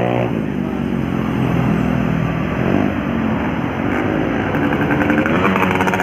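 Roadside traffic on a hill climb: vehicle engines and tyre noise from passing traffic, with an engine pitch sliding up and down about halfway through.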